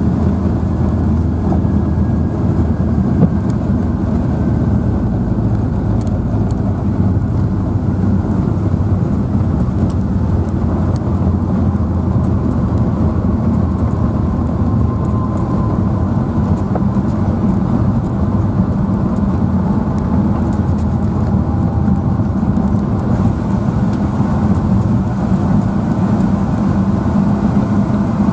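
Cabin noise inside a Boeing 757-200 rolling along the ground after touchdown: a steady rumble of the engines, wheels and airframe, with a faint whine that slowly falls in pitch.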